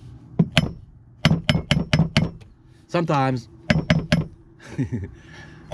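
A hatchet hammer tapping the metal housing of an RV's 12-volt fresh-water pump in quick runs of sharp clinking taps, about five a second, with a short break about three seconds in. This is an attempt to jar a pump that gets 12 volts but won't run back into action; the owner is over 90% certain the pump has failed.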